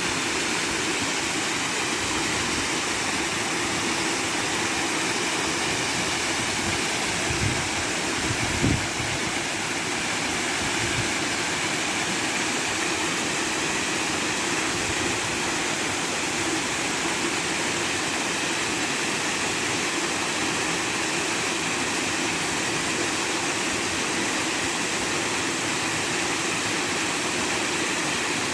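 Steady rush of water falling at a waterfall, an even noise with no change, broken by a few brief low knocks about seven to nine seconds in.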